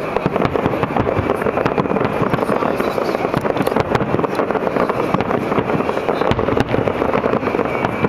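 Fireworks finale: a dense, unbroken barrage of shell bursts and crackling, the bangs packed too close to count.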